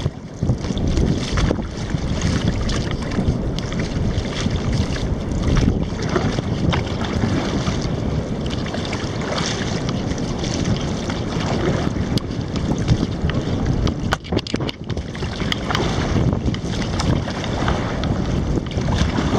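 Wind rushing on the microphone over water splashing from a paddled kayak, with scattered small clicks and knocks. The noise drops briefly about fourteen seconds in.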